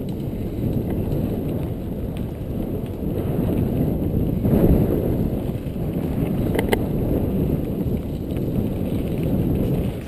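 Mountain bike rolling down a dirt trail: steady rumble of tyres and wind on the microphone, with a few sharp rattles from the bike over bumps, the clearest about two-thirds of the way through.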